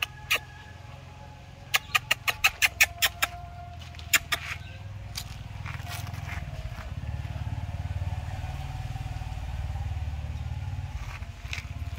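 An engine running steadily in the background, swelling from about five seconds in and easing off near the end. Earlier, a quick run of about eight sharp clicks, roughly six a second, with a couple more a moment later.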